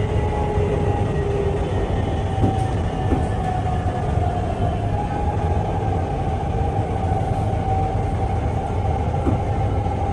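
Guangzhou Metro Line 22 train heard from inside the carriage: a steady low running rumble with a faint motor whine as the train slows on its approach to a station.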